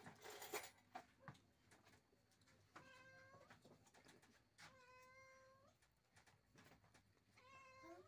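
A domestic cat meowing three times, each call about a second long or less, the middle one the longest.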